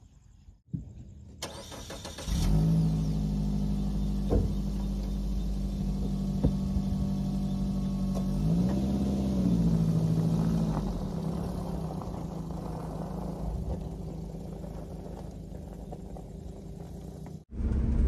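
Suzuki Carry camper truck's engine starting about two seconds in, then idling steadily, with one brief rev around the middle.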